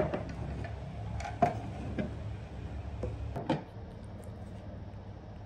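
Light clicks and taps of a small plastic baby bottle and its yellow cap ring being handled on a wooden table, about six in the first three and a half seconds. A low hum underneath stops about three and a half seconds in.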